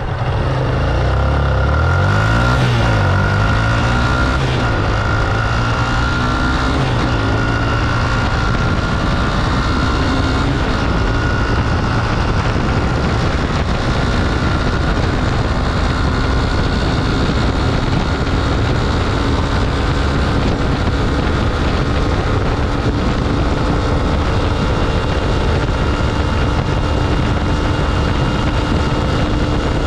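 Yamaha YBR 250's single-cylinder four-stroke engine accelerating hard, its pitch rising and dropping through several gear changes in the first few seconds, then running steadily at high revs at speed.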